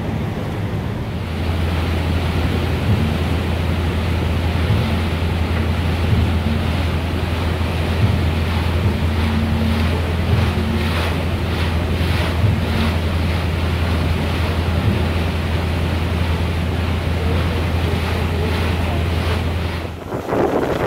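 Wind buffeting the microphone and water rushing past a moving ship, over a steady low hum from the ship's engine. The hum cuts off shortly before the end.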